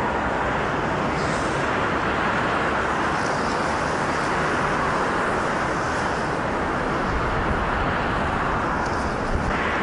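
Steady hum of distant city traffic: an even, continuous rush of road noise with no distinct events.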